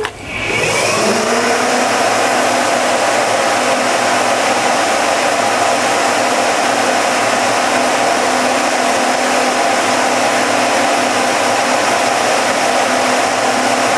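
A model tornado's fans, a high-velocity automotive radiator fan driving the updraft and six computer fans pushing air down the side tubes, are switched on. They spin up with a rising whine over about the first second, then run as a steady rush of air with a steady hum.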